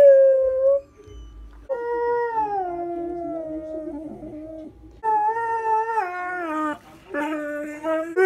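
Borzoi howling and 'talking' in a series of long, drawn-out calls, each sliding down in pitch: a short one ending under a second in, then long howls starting about two, five and seven seconds in.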